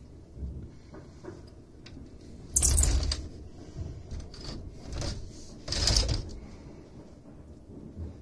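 Fireworks going off: two loud bangs, each ringing on for about half a second, about two and a half and six seconds in, with smaller pops between them.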